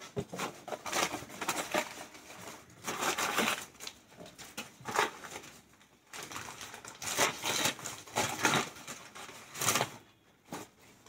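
Wrapping crinkling and rustling in irregular spurts as it is pulled off ceramic bowls by hand. It dies away about ten seconds in.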